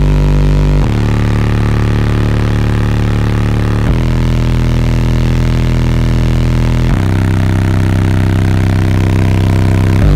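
Deep, sustained bass notes from a Scion xB's two custom-built 18-inch subwoofers in a fourth-order enclosure, powered by Twisted Sounds 3500 amplifiers. Each note holds steady for about three seconds, then jumps abruptly to a new pitch, three times, with a fourth change right at the end.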